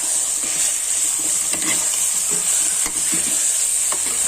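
Fried mutton pieces sizzling steadily in an oily onion-tomato masala while being stirred, with soft scrapes of the spoon against the pan.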